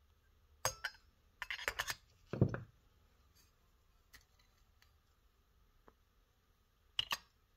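Small metal carburetor parts clicking and clinking in a stainless steel parts tray: several light clicks, a heavier knock about two and a half seconds in as the Tecumseh carburetor body is set down in the tray, then two more clicks near the end.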